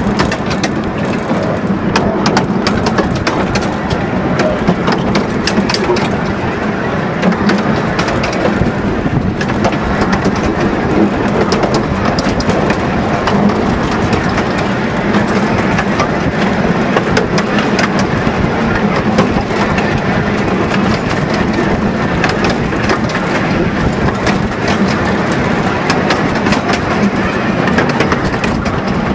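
15-inch gauge miniature steam train running, heard from an open carriage: a steady rumble of the wheels on the track with many sharp clicks, under wind on the microphone.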